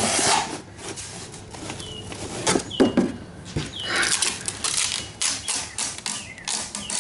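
Rustling and irregular knocks and clicks from packaging and parts being handled, with several short high squeaks that fall in pitch.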